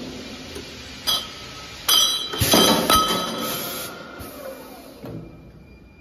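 Stainless steel pipes clinking against each other and against the steel rails of a chamfering machine. There is one sharp clink about a second in and a cluster of louder ringing knocks around two to three seconds in, and the ring dies away after that.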